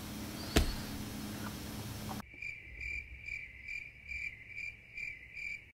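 Cricket chirping sound effect: evenly repeated high chirps, about two a second, cutting in abruptly about two seconds in over the quiet of an edit card. Before it there is faint room tone with a single sharp click.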